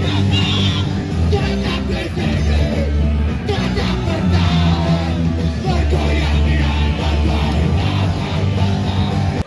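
Loud punk rock music: a band playing with yelled vocals over a heavy bass line.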